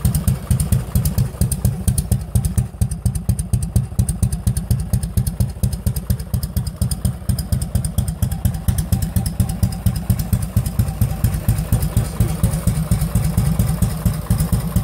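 1959 Harley-Davidson FL's 74 cubic-inch Panhead V-twin idling steadily, with an even, rhythmic exhaust beat.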